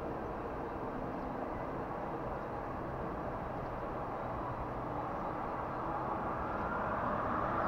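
A bus approaching on a mountain road: its engine and tyre noise is a steady rush that grows louder over the last couple of seconds as it nears.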